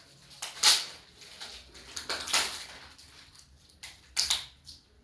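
Sellotape being pulled and torn off a vacuum-sealed mattress's plastic wrapping: a few short, noisy rips and rustles of tape and plastic.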